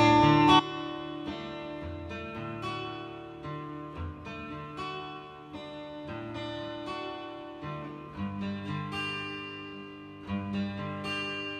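Acoustic guitar strummed and picked through a chord progression as the introduction to a song. The first chord is the loudest, then the playing settles to a steady, lighter level.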